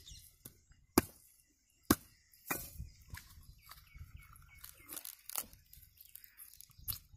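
A knife chopping into a green tender coconut: two sharp strikes about a second apart, followed by softer tearing and scraping as the cut husk at the top is pried off by hand.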